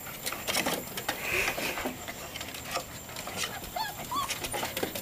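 Golden Retriever puppies scrambling in a wooden-sided wagon: a steady scatter of claws scratching and scrabbling on the wood, with a few short high whines about four seconds in.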